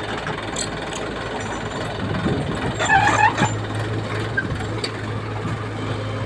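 Mahindra Arjun tractor's diesel engine running steadily with a low hum as it pulls a tipping trolley, with a brief louder, higher-pitched sound about three seconds in.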